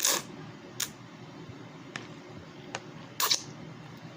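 A person eating chicken lo mein: short sharp mouth and slurping sounds, a loud one at the very start and another loud pair about three seconds in, with fainter clicks between.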